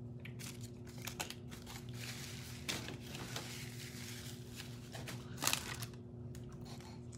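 Paper fast-food wrapping being crinkled and handled, with scattered small crackles and clicks and one sharper crackle about five and a half seconds in, over a faint steady hum.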